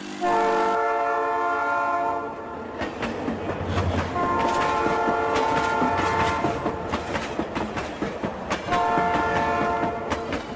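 Train sounding a multi-note horn three times, a short blast at the start and two longer ones later, over the rhythmic clatter of its wheels on the rail joints.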